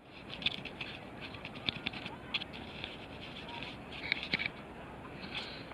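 Small birds chirping in short, scattered calls over a steady outdoor background hiss.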